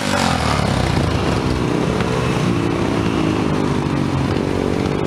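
Off-road motorcycle engine revving up and down under load as the bike climbs a steep dirt bank.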